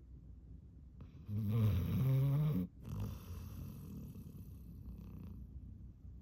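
Yellow Labrador Retriever snoring in a deep sleep, a cartoon-like snore: one loud, pitched snore starting about a second in and lasting about a second and a half, its pitch stepping up just before it cuts off sharply, followed by softer, noisy breathing.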